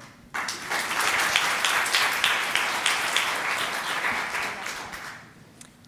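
Audience applauding, many hands clapping together; it starts almost at once and fades out near the end.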